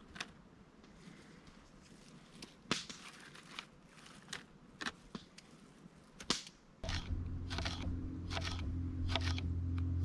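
Fresh parsley being snipped off for garnish: short sharp snips, about one every second, with a pause in the middle. About seven seconds in, a steady low hum sets in suddenly and becomes the loudest sound.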